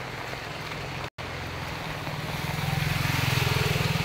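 Motorcycle engine running as it rides through floodwater, growing louder as it passes close by about three seconds in, with the hiss of water sprayed up by its wheels. The sound cuts out for an instant about a second in.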